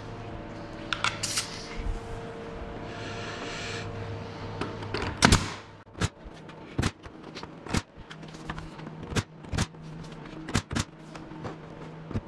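Cordless nail gun driving nails into wooden blocks against a walnut slab: a run of sharp, separate shots, about one or two a second, starting about five seconds in, over a steady low hum.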